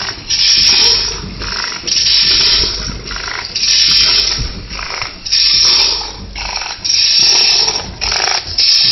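Snack packing machine with a volumetric cup filler running, giving a rasping hiss about every one and a half seconds as it cycles through its fills.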